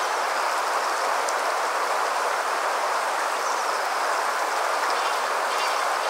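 Waterfall rushing, a steady even roar of falling water, with a few faint high chirps now and then above it.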